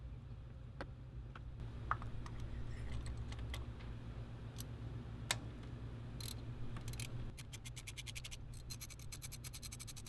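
Socket ratchet clicking as it is worked on the Toyota Highlander's spark plug and ignition coil hardware, with a few scattered clicks and knocks of tools at first, then a fast, even run of ratchet clicks in the second half.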